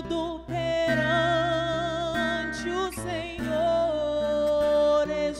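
A woman singing a gospel song, holding long notes with vibrato, over a fingered acoustic guitar accompaniment.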